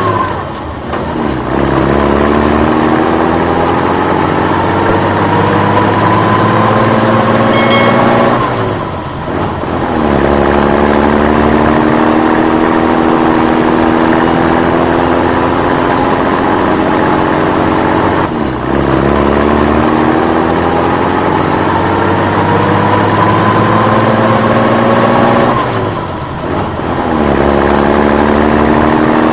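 Tractor engine sound effect: an engine running with its pitch climbing slowly, as if pulling away and accelerating. It drops back and starts again about every eight seconds, like a looped recording.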